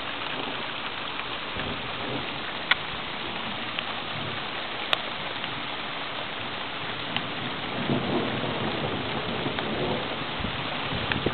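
Thunderstorm: steady rain hiss, broken by two sharp clicks in the first half. A low rumble of thunder builds from about eight seconds in.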